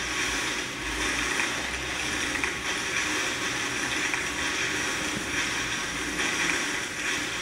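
A dense, steady rustling hiss that starts abruptly and swells a little from moment to moment.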